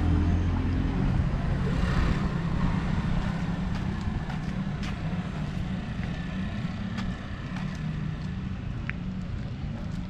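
Road traffic: car engines running and passing on the street, a steady low rumble that swells briefly about two seconds in.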